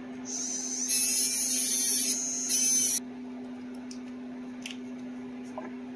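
High-speed rotary tool sanding and polishing a small silver part: a high-pitched whine that rises as it spins up, runs for about three seconds with a brief dip under load, then stops. A steady low hum sits underneath.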